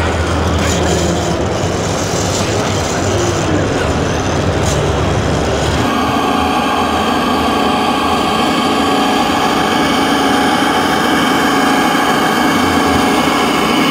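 Engine sound of a large-scale RC model tractor, a steady low rumble. After a cut about six seconds in it changes to a steadier hum with several held tones from an RC Mercedes Unimog. Faint voices run underneath.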